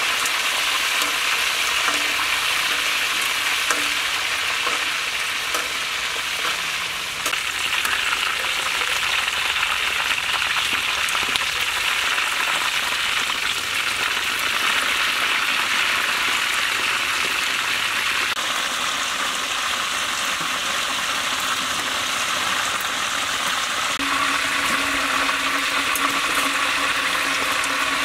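Whole chickens deep-frying in a wok of hot oil: a steady sizzle, with light clicks and scrapes of a metal spatula turning them.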